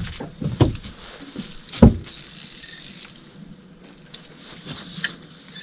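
Scattered knocks, clicks and rattles of fishing gear being handled on a boat deck, with one sharp, louder thump about two seconds in and a brief hiss just after it.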